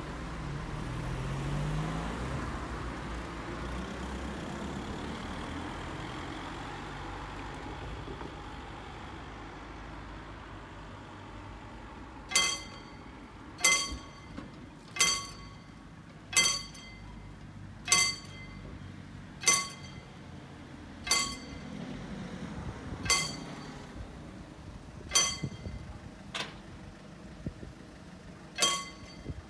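A car passes over the crossing at the start. About twelve seconds in, the mechanical gate bell of a hand-operated level crossing begins striking single ringing strokes, about eleven of them, one every one and a half to two seconds, as the barriers are lowered.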